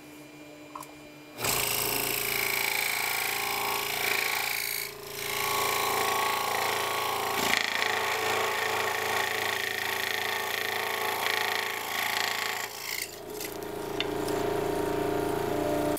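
A scroll saw starts about a second and a half in and runs steadily, its reciprocating blade cutting a ring out of a wooden board. The level dips briefly twice as the cut goes on.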